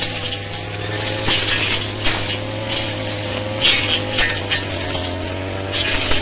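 Brush cutter engine running steadily at high revs, with repeated bursts of crunching and swishing as the blade cuts through shrubs.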